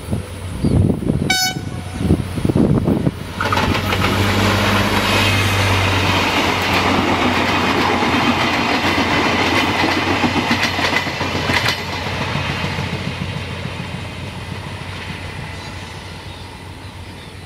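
A short train horn blast about a second in, then a passenger multiple-unit train passing close by: dense running noise and wheel clatter over the rail joints, loudest for several seconds, then fading as it recedes.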